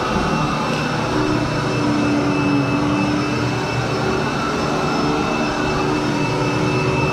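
Commercial upright vacuum cleaner running steadily as it is pushed over carpet: a constant motor drone with a thin, steady high whine on top.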